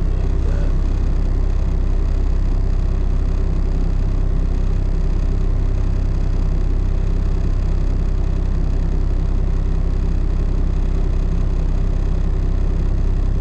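Diesel engine of a tri-axle rollback truck running steadily, with no revving or change.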